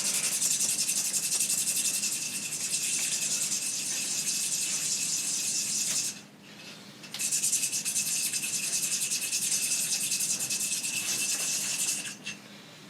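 A steel valve shim from a Toyota 1G-FE engine being ground down against a spinning angle-grinder disc, a steady grinding hiss in two passes with a break of about a second in the middle; it stops near the end. The shim is being thinned to open up too-tight valve clearances.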